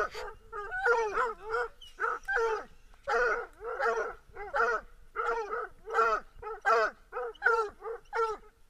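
Hound barking steadily at the foot of a tree, about two short barks a second, each dropping slightly in pitch: the treeing bark of a hunting dog that has game up the tree.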